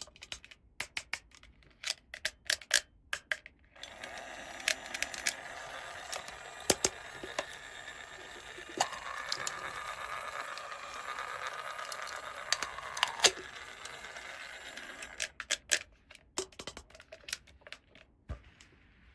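Small plastic toy pieces clicking and tapping as they are handled, with a steady scraping, rustling stretch in the middle lasting about ten seconds.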